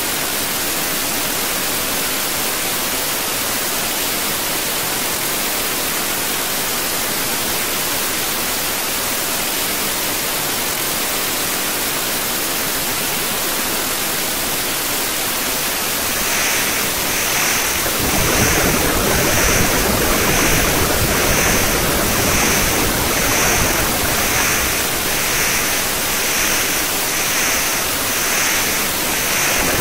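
Steady hiss of noise. About 16 s in, a soft high pulsing at roughly one beat a second joins it, and from about 18 s a deeper rumble fills in underneath.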